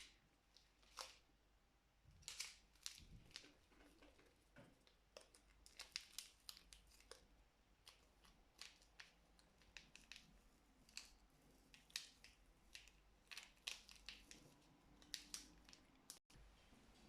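Faint scattered crinkles, clicks and tearing sounds of packaging being handled and opened.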